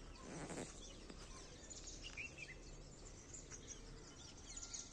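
Faint birds chirping, scattered short calls over a quiet outdoor background, with a brief rustle about half a second in.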